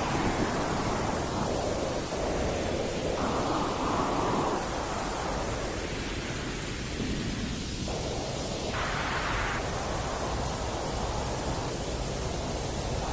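Steady baby-soothing white noise, a constant hiss whose tone shifts between brighter and duller bands every few seconds.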